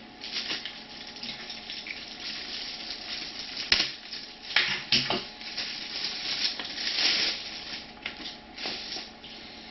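Packaging being handled and opened: continuous rustling and crinkling, with sharp clicks and snaps about four and five seconds in and again near the end.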